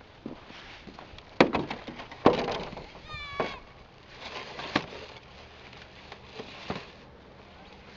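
A child sledding down an icy hill: a run of sharp knocks and scrapes from the sled, and a brief high-pitched squeal about three seconds in.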